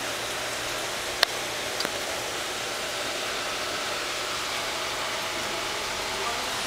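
Steady hiss and splash of aquarium sponge filters bubbling from an air pump. A sharp click about a second in, then a fainter one shortly after.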